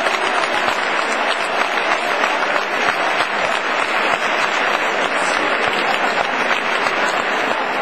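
Large stadium crowd applauding: a dense, steady clatter of many hands clapping.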